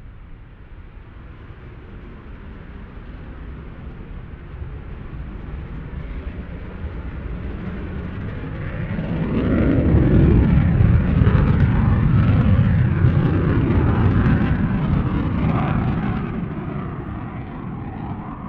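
Jet aircraft passing by: a low engine rumble that builds gradually, is loudest for several seconds in the second half, then fades as it moves away.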